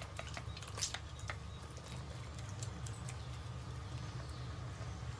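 Quick sharp clicks and taps as a downy Andean condor chick and a condor-head hand puppet touch beak to beak, bunched in the first two seconds and the loudest about a second in, over a steady low hum.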